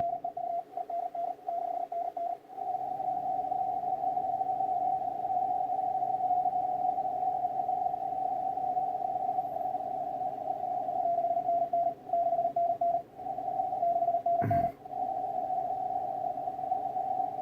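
Shortwave receiver on the 20-meter amateur band playing fast Morse code (CW) at about 40 words per minute: a mid-pitched beep keyed in quick dots and dashes over band hiss. After the first couple of seconds the busy contest band keeps the beeping almost unbroken, and a short thump comes about three-quarters of the way through.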